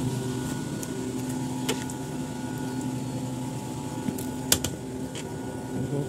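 Rooftop air-conditioning equipment running with a steady hum. Two sharp clicks come from the air handling unit's access-door handle and latch, a light one about a second and a half in and a louder one past the middle.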